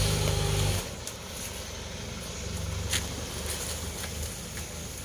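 An engine aboard the barge carrying a rice combine harvester, running with a low, even rumble. It is louder for the first second and again for a stretch in the middle, with one sharp knock about three seconds in.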